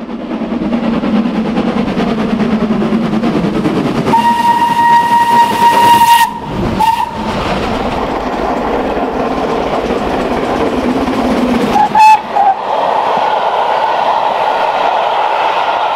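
Steam locomotive running, with its whistle sounding: one long steady blast about four seconds in that cuts off sharply, a short toot just after, and two short toots about twelve seconds in.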